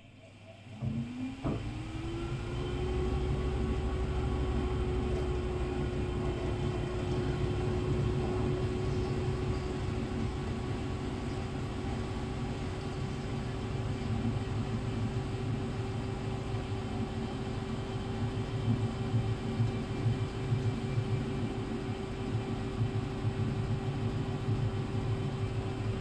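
Vintage Candy 133 front-loading washing machine going into its spin. About a second in, the motor's whine rises quickly, then holds steady over the drum's low rumble.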